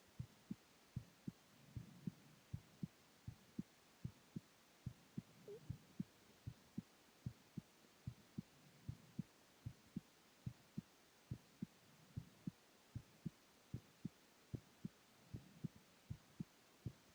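A resting adult male heartbeat: steady, faint double thumps (lub-dub), about one beat a second.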